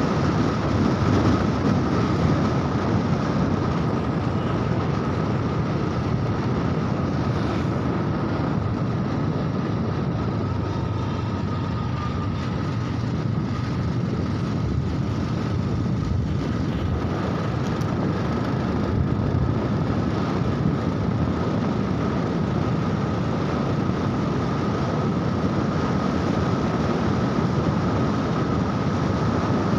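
Motorcycle under way at a steady cruising speed: wind rushing over the microphone and road noise, with the engine running underneath and a steady high whine.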